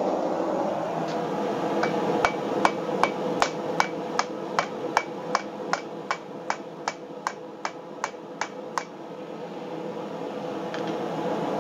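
Hand hammer forging a glowing-hot axe head on the anvil: about twenty steady blows at roughly two and a half a second, each with a short metallic ring. The blows start about a second in and stop about nine seconds in, over a steady rushing background noise.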